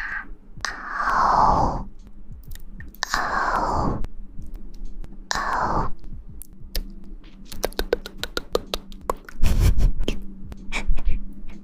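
Close-miked ASMR rustling: three slow swishing strokes, then a quick run of crackles and clicks with one dull thump.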